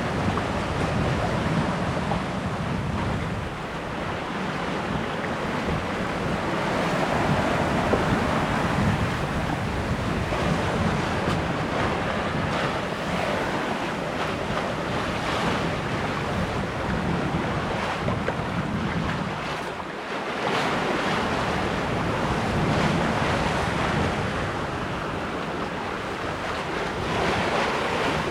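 Wind buffeting the microphone over waves washing past a sailboat under way, the rush swelling and easing every few seconds.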